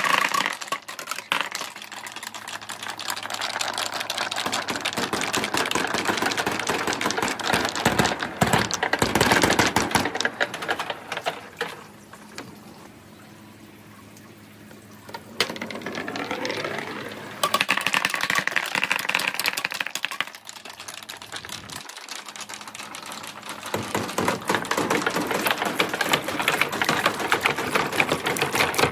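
Dozens of hard balls, orange Dragon Ball replica balls among them, rolling and clattering down a marble run of metal sheeting, gutters and wooden chutes: a dense, rapid clicking. It dies down to a quieter stretch a little before halfway, then the clatter builds again.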